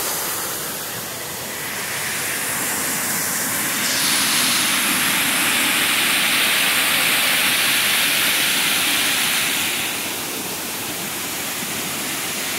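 Moxie Falls, a waterfall plunging down a rock gorge into its pool: a steady rush of falling water. It grows louder about four seconds in and eases again near ten seconds.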